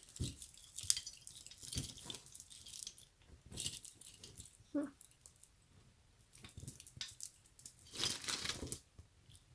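Loose costume jewelry clinking and rattling in irregular bursts as hands rummage through a pile of it, with a longer, louder burst near the end.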